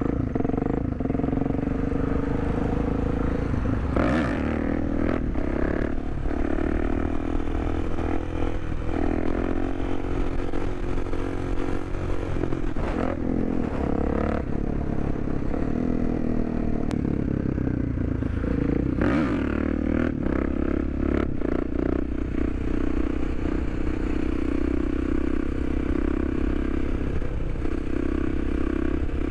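Supermoto motorcycle engine running under way, heard from the rider's helmet, with wind rushing over the microphone. The engine note shifts in pitch a few times.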